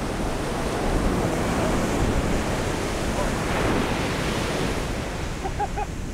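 Surf breaking and washing up the beach, with wind buffeting the microphone; the wash swells a little around the middle.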